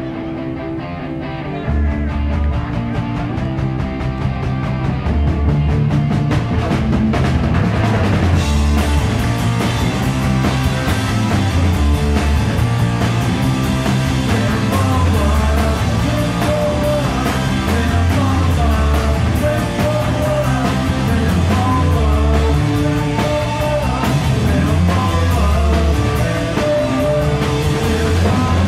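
Punk rock band playing live, with electric guitar, bass and drums. The band gets louder and fuller about two seconds in, and again around eight seconds in as the cymbals come in.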